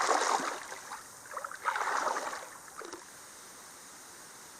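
Shallow creek water splashing and sloshing in two bursts as someone wades barefoot, then settling to the creek's steady faint flow.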